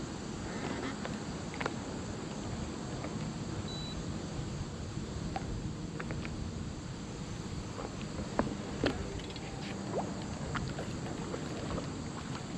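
Steady wind noise on the microphone over water around an open bass boat, with scattered faint clicks.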